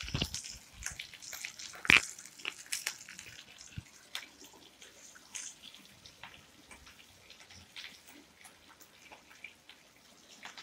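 Stuffed bitter gourds shallow-frying in oil in an iron kadhai on medium flame: a steady sizzle with scattered crackles and pops, and one sharp knock about two seconds in.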